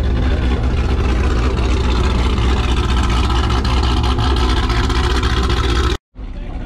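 Sixth-generation Chevrolet Camaro engine running at a steady, low exhaust rumble as the car rolls slowly past, with no revving. The sound drops out abruptly for a moment near the end.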